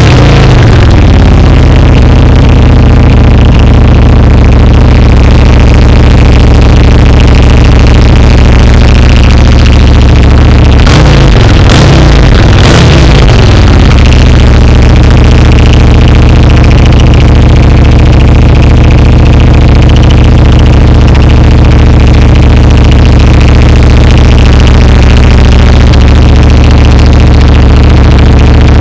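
2009 Buell 1125R's 1125 cc liquid-cooled V-twin idling loud and steady through an aftermarket HFM exhaust. It settles back to idle after a throttle blip in the first second. About eleven seconds in it is blipped three times in quick succession, each rev falling straight back to idle.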